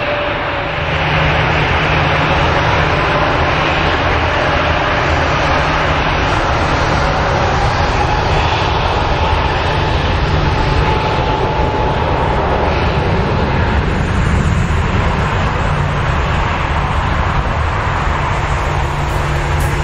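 Jet engine noise from an Airbus A321neo's Pratt & Whitney PW1100G geared turbofans as the airliner moves on the runway. The noise is steady and grows louder about a second in, with a faint whine edging slightly up in pitch.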